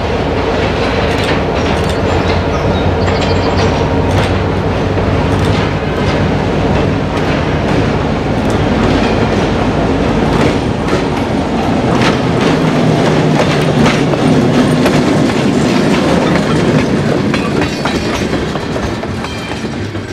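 Diesel locomotive hauling a few freight cars approaches and passes close by, its engine running steadily under the rumble of the train, with the wheels clicking over rail joints. It is loudest as it goes past a little after halfway through and begins to fade near the end.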